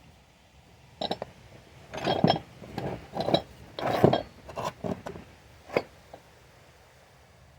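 Hand tools clinking and knocking against metal: about a dozen irregular sharp knocks and clanks, some with a brief ring, the loudest around two and four seconds in, ending with a single sharp clink near six seconds.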